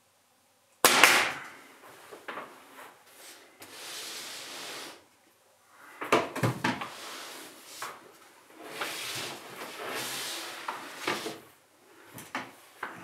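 A nail gun fires once about a second in, a sharp crack driving a nail into the wooden frame. It is followed by scattered knocks, clicks and rubbing as the tool is set down and the bar clamps on the frame are adjusted on the workbench.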